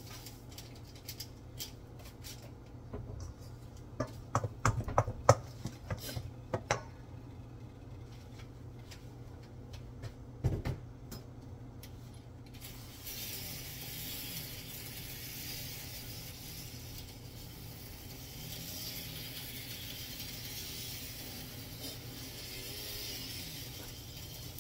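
Kitchen sounds at a stove with pots cooking: a few sharp clinks and knocks of pots and utensils a few seconds in and again near the middle, over a steady low hum. About halfway through, a steady hiss comes in and continues.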